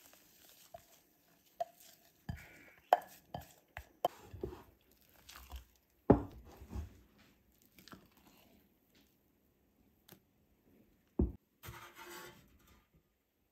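Wooden spatula knocking and scraping against the sides of a ceramic mixing bowl while whipped egg whites are folded into thick chocolate cake batter: irregular soft knocks and clicks, with a single sharper knock near the end.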